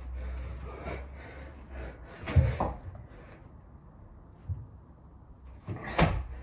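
Body-weight thuds of a person doing burpees on a thin mat over a hard floor: a loud thud about two and a half seconds in as he drops into the plank, a small knock near the middle, and another loud one about six seconds in as he jumps back up.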